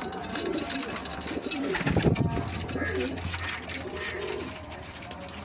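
Domestic pigeons cooing softly in a loft, repeated low calls, with a short louder rustle about two seconds in.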